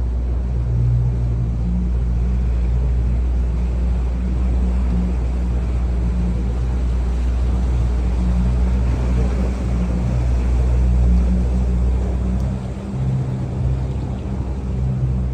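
A small boat's motor running steadily, a low drone over the rush of water and wind. The deepest part of the drone eases off about twelve seconds in.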